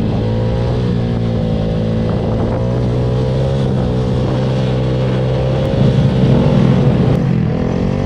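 Motorcycle engine running while riding, its pitch wavering up and down, louder for a moment about six seconds in.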